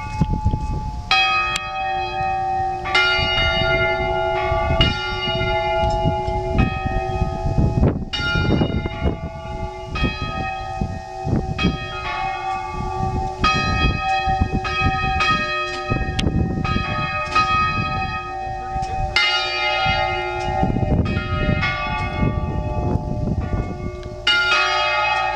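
Anglican church tower bells ringing, struck roughly once a second at several pitches, each stroke ringing on under the next.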